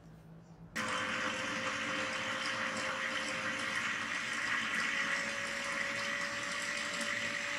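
Electric food chopper switching on about a second in and running steadily, its blade grinding raw boneless chicken with onion, green chillies and spices into a paste. The motor's faint hum steps up slightly in pitch midway.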